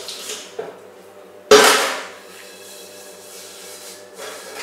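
A single loud clang of kitchenware being knocked or set down hard, about a second and a half in, ringing briefly, with a few lighter knocks and clinks before it.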